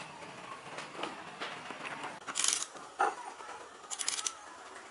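Clinks and knocks of metal tools and engine parts being handled as an old motorbike engine is taken apart, with two short rattling bursts of fast ticks, about two and a half and four seconds in, and a sharp knock between them.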